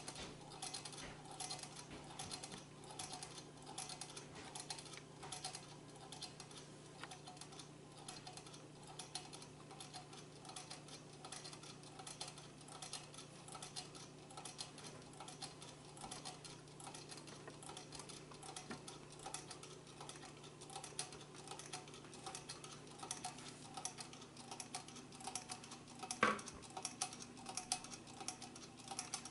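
Homemade tin-can Stirling engine running over a candle, its wire crank linkage and flywheel making a faint, steady rhythmic ticking, with one louder click near the end. A faint steady hum sits underneath.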